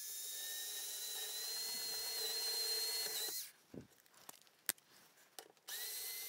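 Hand-held power drill with a small 5/64-inch bit running steadily with a thin whine as it bores through foam and plywood. It stops about three and a half seconds in, a few light clicks follow, and it starts again shortly before the end.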